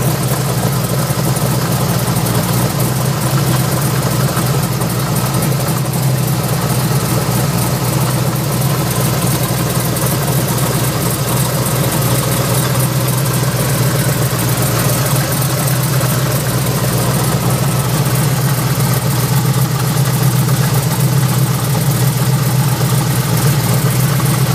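De Tomaso Pantera's V8 engine idling steadily, heard up close at its GM three-wire alternator. The alternator is vibrating violently, which the owner blames for its repeated failures.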